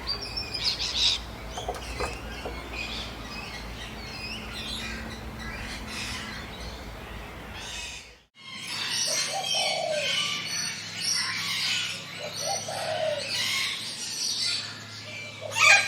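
Wild birds chirping and singing in a forest chorus. It drops out briefly about eight seconds in, then returns as a denser chorus with low cooing calls mixed in.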